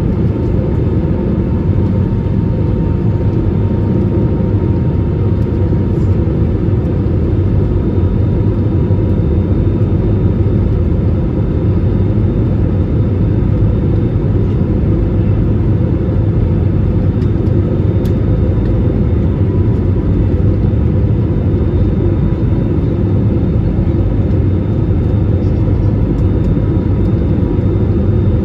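Cabin noise of a jet airliner in flight, heard from a window seat over the wing: the turbofan engine and the airflow make a steady low rumble, with a faint steady whine above it.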